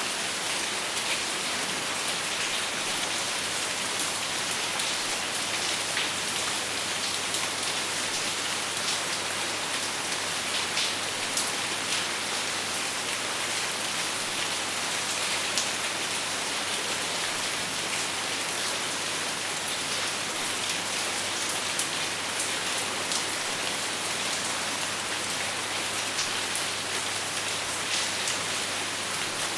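Steady rain falling, an even hiss with many small drops pattering on a surface, and no thunder.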